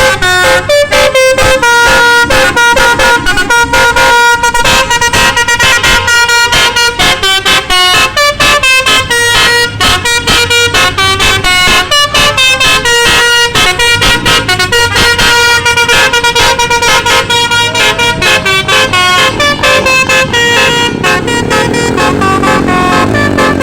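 Basuri musical bus horn playing a fast telolet-style melody: a rapid run of short, steady horn notes jumping between pitches several times a second. Near the end, a lower warbling tone that sweeps up and down joins in.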